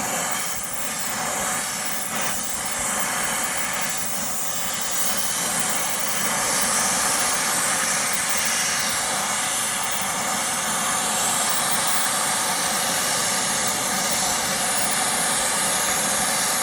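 Brazing torch flame hissing steadily as it heats the larger refrigerant line's joint on a replacement compressor, bringing it up to brazing temperature.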